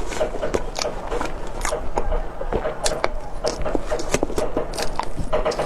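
Close-up eating sounds: soft cake being bitten and chewed, with irregular mouth smacks and clicks several times a second.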